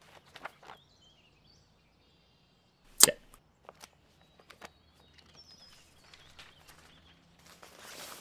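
Quiet room tone with faint bird chirps. A single sharp click sounds about three seconds in, with a few softer clicks and rustles around it.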